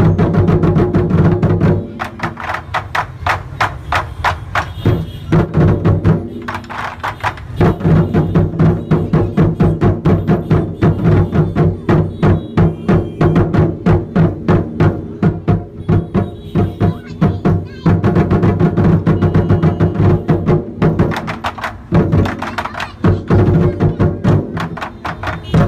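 Lion-dance drumming: a drum beaten in fast, dense strokes with percussion accompaniment, going loud and softer in turns, loudest through the middle stretch.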